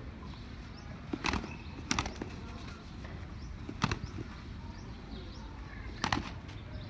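Two roosters fighting, their wings beating in a few sharp, short bursts as they leap at each other and clash.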